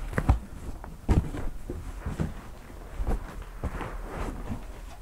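Irregular knocks and thumps with rustling in between as the packaging of a boxed push bar is handled; the sharpest knocks come near the start and just after a second in.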